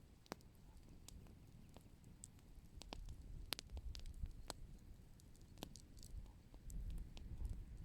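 Open fire crackling: scattered, irregular sharp pops and snaps over a low rumble.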